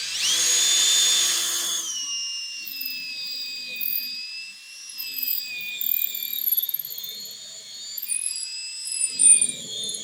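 Electric drill spinning up to a high whine, then dropping to a lower pitch as the bit bites in, running under load for several seconds and slowing gradually before stopping near the end.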